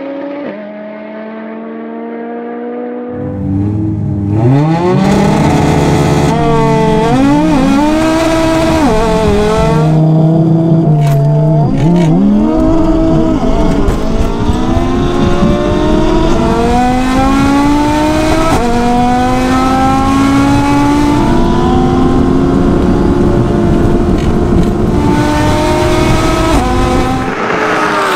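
Twin-turbo Audi R8 V10 and built Audi TT RS five-cylinder launching hard from a standing start about three seconds in, then accelerating flat out through the gears, the engine pitch climbing and dropping back at each upshift. The engine note falls away at the very end.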